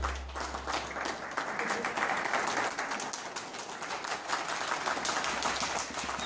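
Audience applauding: many hands clapping irregularly and densely.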